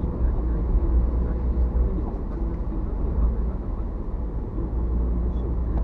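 Steady low rumble of a car's engine and tyres on the road, heard from inside the moving car's cabin through a dashcam microphone.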